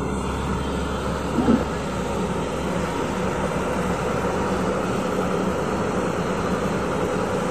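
Crawler excavator's diesel engine running steadily under load as it pushes a vibratory roller compactor uphill with its bucket. A brief louder sound about a second and a half in.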